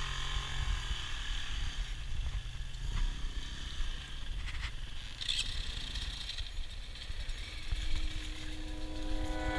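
Enduro dirt-bike engines running at low revs while a bike is worked over boulders, with the dull knocks and scrapes of tyres on rock and a constant rumble of wind on the helmet-camera microphone. Near the end one engine holds a steadier, higher note.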